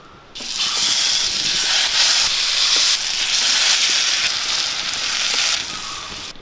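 Pineapple pieces sizzling loudly in hot oil as they fry. The sizzle starts suddenly about a third of a second in and eases off near the end.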